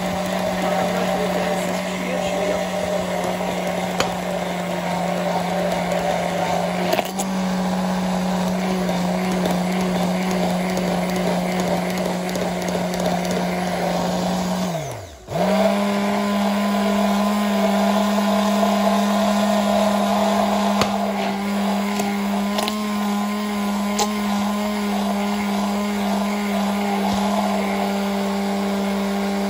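Hand-held immersion blender motor running steadily, whirring as it blends eggs and oil into homemade mayonnaise. About halfway through it is switched off and winds down in pitch, then restarts at once and runs on.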